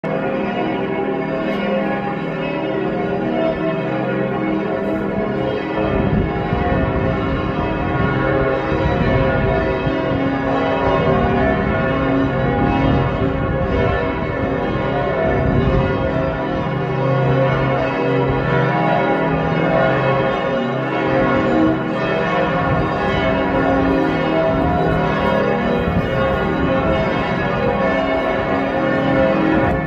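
The cathedral's church bells pealing together, many bells sounding at once in a dense, continuous wash of overlapping ringing tones. From about six seconds in, a deeper low sound joins beneath them.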